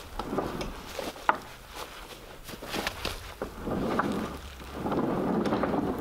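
Scattered knocks and clicks from the heavy cedar sawmill carriage and its iron hardware being pushed and shifted by hand, with low rumbling swells about two thirds of the way through and again near the end.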